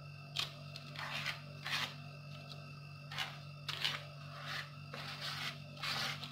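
Short rubbing swishes of a hand-held pad wiping over a freshly glued decorative paper sheet on cardboard, pressing it flat, about eight strokes in all. A steady low hum runs underneath.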